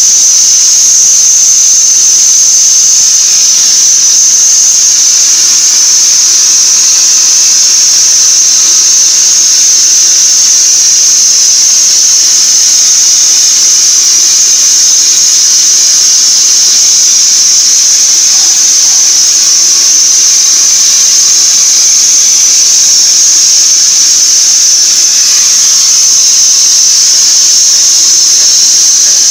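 CNC plasma cutting torch cutting metal plate: the arc gives a loud, steady, high-pitched whine over a hiss.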